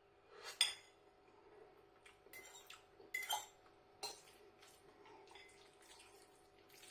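Cutlery clinking against a bowl a few times as food is picked up, faint and sharp, with a steady low hum beneath.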